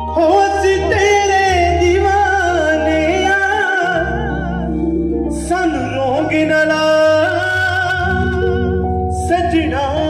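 Live band playing a song: a male singer's melody over bass guitar, keyboard and electric guitar, the voice pausing briefly near the middle.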